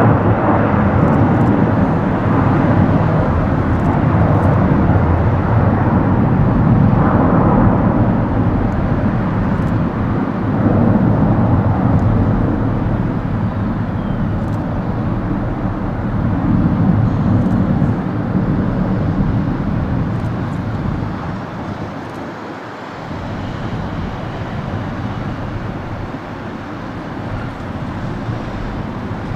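Jet engines of a twin-engine Airbus A330 climbing away after takeoff: a steady low rumble that eases off about two-thirds of the way through and carries on quieter.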